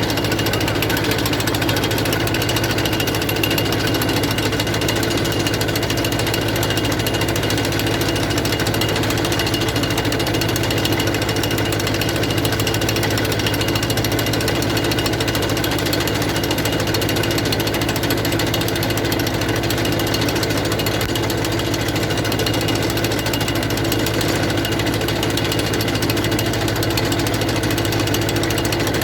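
Captain tractor's small diesel engine running steadily under load, with a fast, dense mechanical rattle from the tractor and its potato digger.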